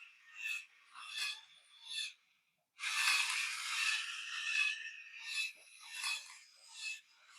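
Small electric motor and plastic gearing of a Thames & Kosmos remote-control Orangutan model, rasping in repeated pulses about every 0.7 s as it works its way along a string. The sound cuts out briefly partway through, then runs as one continuous rasp for a couple of seconds before the pulsing returns.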